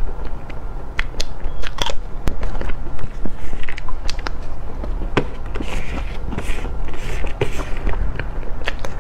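Close-miked mouth sounds of eating soft cream cake: wet smacking and sticky clicks of lips and tongue while chewing, coming in quick irregular clicks.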